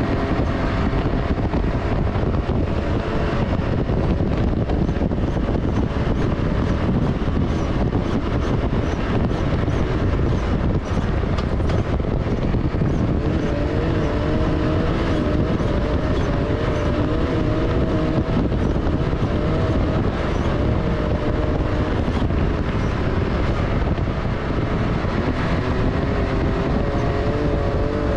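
A vehicle engine running under way, with heavy wind and ground noise. The engine's pitch drifts gently up and down.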